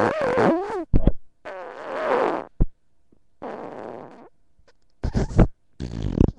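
Imitation fart noises made by a person: a run of buzzing, wavering blows, about six bursts with short gaps between, standing in for a constipated bear straining on the toilet.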